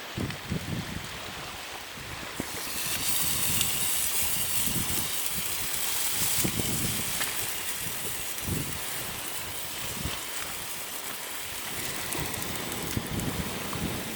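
Wind gusting against the microphone in uneven low buffets over a steady rush of water. The hiss grows louder a couple of seconds in.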